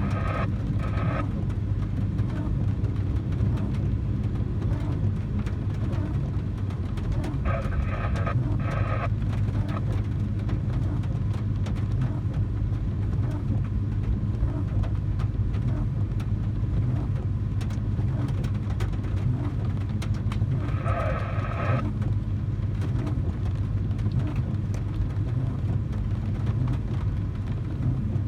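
Steady low engine drone, with three short stretches of faint, muffled voice-like sound.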